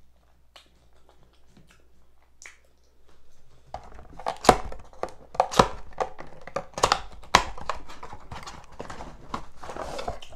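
Packaging and a bottle being handled as a hot sauce bottle is fished out from behind a food box. Faint clicks at first, then from about four seconds in a busy run of knocks and clatter mixed with paper or cardboard crinkling.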